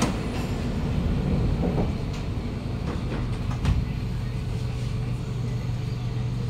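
Kawasaki Nippon Sharyo C751B metro train: the saloon doors shut with a knock, then the train starts to pull away with a low, steady traction-motor hum and a few knocks from the car body, the loudest about halfway through.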